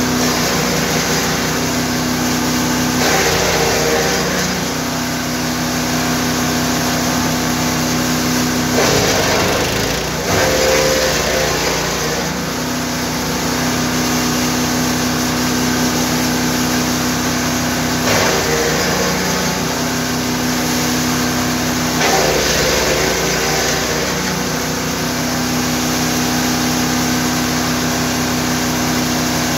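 GTM GTS 900 wood chipper's 9 hp engine running steadily. Four times a louder spell of chipping noise comes over it as branches are fed through, and the engine's pitch dips under the load about a third of the way in.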